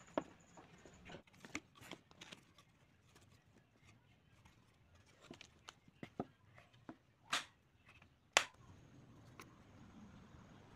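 Scattered small clicks, taps and knocks of bamboo and wooden parts being handled and fitted together on a table. A brief scrape comes a little after seven seconds, and the sharpest, loudest click about a second later.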